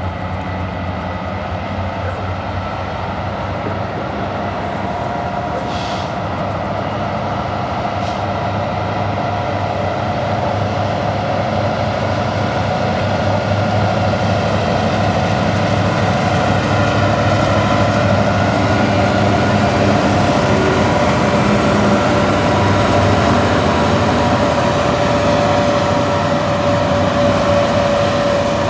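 Diesel locomotives of a BNSF freight train, among them SD70MAC 9709, running as they approach and pass, a steady engine drone with a few held tones that grows gradually louder.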